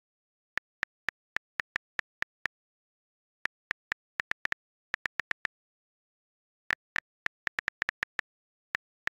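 iPad on-screen keyboard clicks as emojis are tapped in one after another: about thirty short, identical ticks in quick bunches, with dead silence between them.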